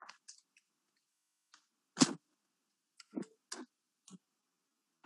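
A few short clicks and knocks with quiet between them: faint ones at the start, a louder one about two seconds in, a quick cluster about a second later and one more near the end.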